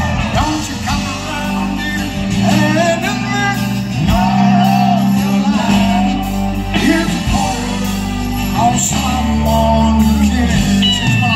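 Live country-rock band playing: a male lead vocal sings over acoustic and electric guitars and bass through a loud PA.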